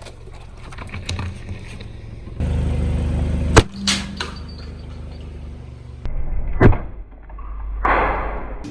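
A car crawling forward with its engine running low as its tyre crushes objects: a sharp crack a little over three seconds in, another about two-thirds through, and a hissing crunch near the end, with the sound cutting abruptly between clips.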